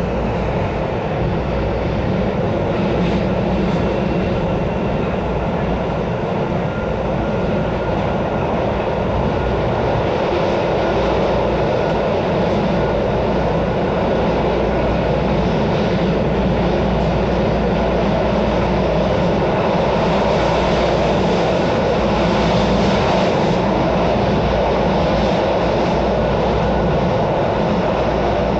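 Miami-Dade Metrorail car running at speed on the elevated track, heard from inside the car: a steady rumble of wheels and running gear, growing slightly louder about halfway through.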